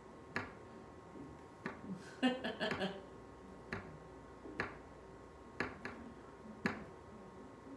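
A series of sharp, separate clicks or taps, about seven, at uneven intervals, with a short rapid rattle of clicks a little past two seconds in.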